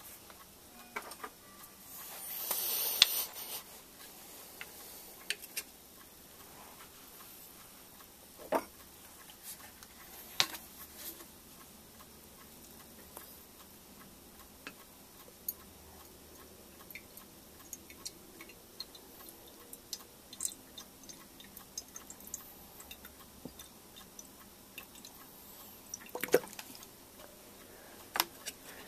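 Small clicks, taps and knocks of hands handling the parts of a scratch-built brass live-steam model locomotive, with a brief rushing hiss about two seconds in and a few sharper knocks later on.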